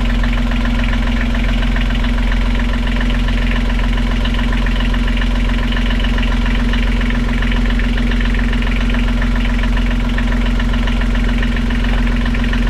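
Universal M-25XP three-cylinder marine diesel idling steadily and loudly, just started with fresh oil added and run for a few minutes to circulate it before the level is rechecked.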